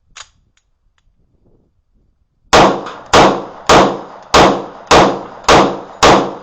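A Magnum Research 1911 pistol in 10mm firing seven shots in steady succession, a little under two a second, starting about two and a half seconds in. A faint click comes just before the firing.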